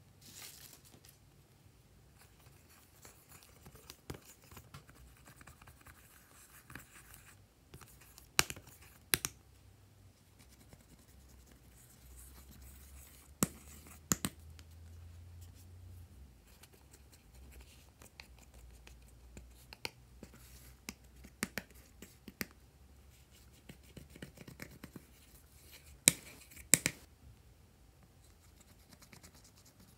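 A plastic spatula scraping powder out of the pressed eyeshadow pans of a palette: soft scratching, broken by a few sharp clicks and taps of the tool against the pans, several of them in pairs.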